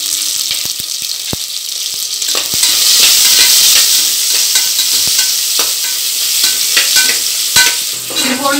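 Sliced onions sizzling in hot oil and ghee with whole spices in a pressure cooker, as a spatula stirs them, scraping and knocking against the pot. The sizzle grows louder about two and a half seconds in.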